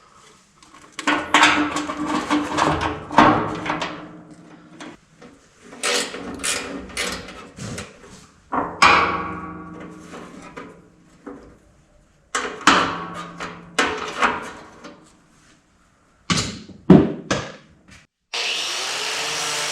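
Steel plate and metal cart parts being handled and knocked: bursts of clanks and knocks, some ringing out, with short quiet gaps between them. Music comes in about 18 seconds in.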